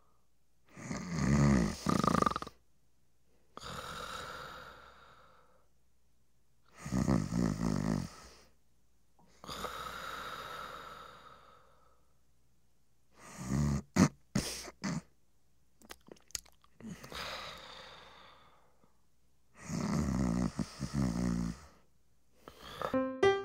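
A person snoring slowly and heavily: four loud snoring in-breaths, each followed by a softer out-breath, with a few short snorts about halfway through.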